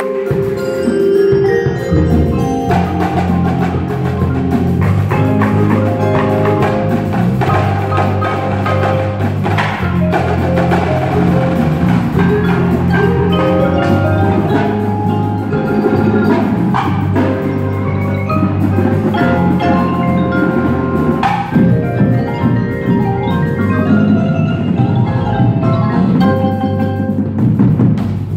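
Indoor percussion ensemble's front ensemble playing: marimbas and vibraphones run quick melodic notes over held low synthesizer tones.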